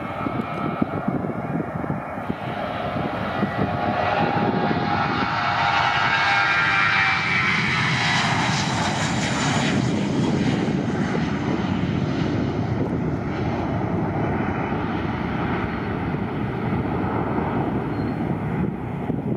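Twin-engine jet airliner taking off at full thrust: the engine noise builds with a whine that rises in pitch as the aircraft passes, then settles into a steady rumble as it climbs away.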